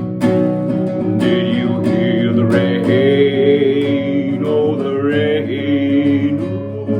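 Acoustic guitar strumming, joined about a second in by long, wavering wordless singing with no lyrics.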